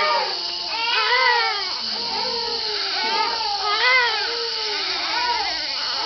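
A baby crying in repeated wails, about one a second, each rising and falling in pitch.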